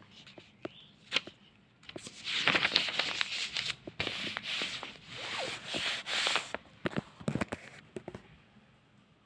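Paper pages of a study book being turned by hand: two long rustling swishes with crackles and taps around them, dying away about eight seconds in.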